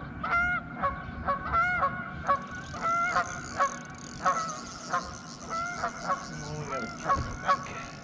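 Geese honking, a quick run of short calls at about two or three a second that overlap at times.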